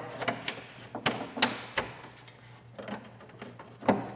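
Irregular light clicks and taps of quarter-turn Dzus fasteners being fitted into a fiberglass race fairing, about a dozen in all, the loudest near the end.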